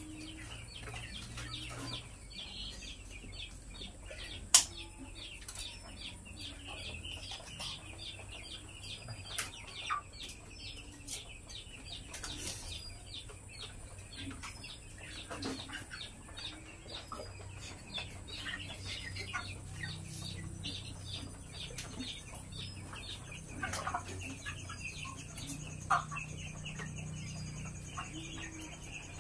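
A flock of broiler chickens clucking and peeping, with scattered light clicks and knocks and one sharp knock about four and a half seconds in.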